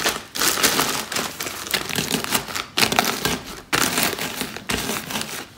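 Oreo cookies being crushed inside a plastic zip-lock bag under a wooden rolling pin: the bag crinkling and the cookies cracking and crunching in repeated strokes.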